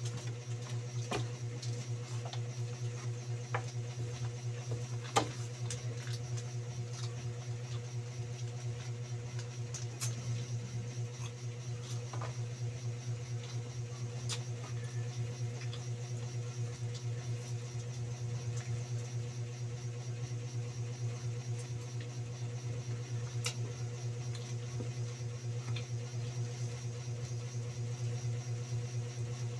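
Eating sounds from someone tearing and chewing roast chicken by hand, heard as scattered sharp clicks and smacks. Under them runs a steady low mechanical hum.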